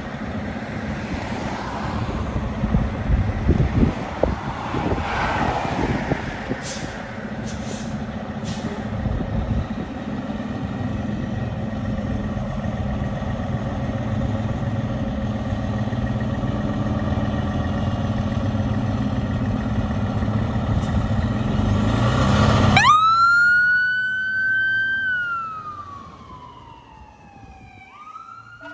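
Fire department ladder truck responding with air horns blasting and its Q mechanical siren wailing over the engine, growing louder to a peak about 22 seconds in. The siren's clear tone then stands out alone, holds briefly and winds slowly down in pitch over the last few seconds.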